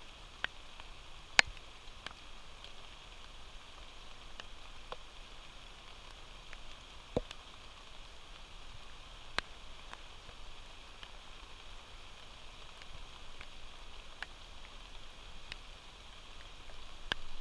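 Steady rain falling, a continuous hiss, with scattered sharp clicks and ticks, the loudest about a second and a half in.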